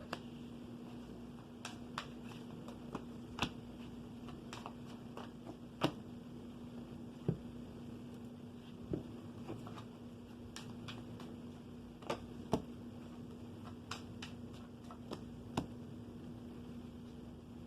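Tarot cards being handled, giving scattered, irregular light clicks and taps over a steady low hum.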